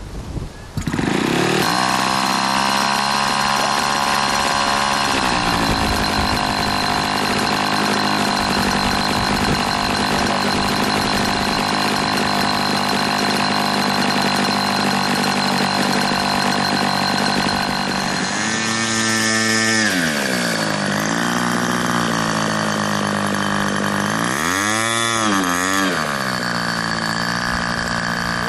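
Scratch-built radio-control Spitfire model's small engine starting and catching about a second in, then running steadily at a fast idle that settles lower about five seconds in. In the last ten seconds it is throttled up and down about three times, the revs rising and falling.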